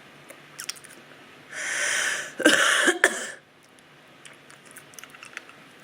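A woman coughing from a sore, inflamed throat: a breathy cough followed straight away by a harsher, voiced one, about two seconds in all, starting near the middle. Faint small mouth clicks come before and after.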